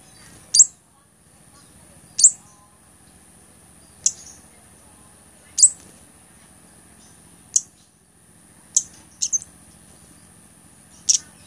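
Blood-breasted flowerpecker (cabai gunung) giving short, sharp, very high call notes, each dropping quickly in pitch, repeated about every one and a half to two seconds, with a quick double note near the end. A faint steady high-pitched hum sits underneath.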